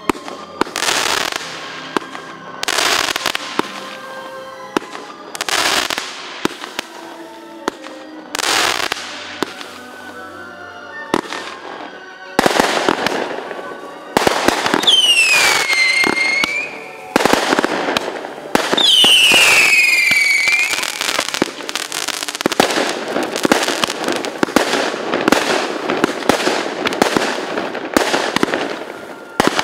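Fireworks going off: single bangs, each trailing off, spaced a few seconds apart, then a dense barrage of crackling bursts. Two whistling tones fall in pitch about halfway through.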